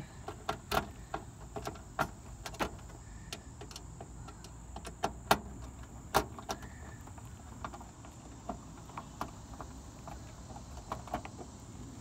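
Screwdriver turning a screw into the sheet-metal control panel to fasten the new run capacitor's mounting bracket: scattered sharp metallic clicks and ticks, over a steady low background rumble.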